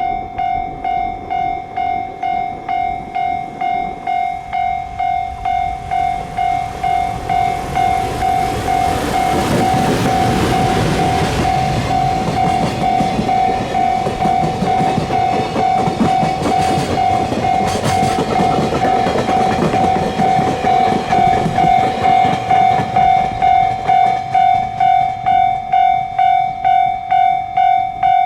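Japanese level-crossing warning alarm sounding its pulsing tone, about two strokes a second, while a train passes over the crossing. The passing train's rumble and wheel clatter swell in at about eight seconds, peak about ten seconds in and fade by about twenty-two seconds. The alarm cuts off suddenly at the very end.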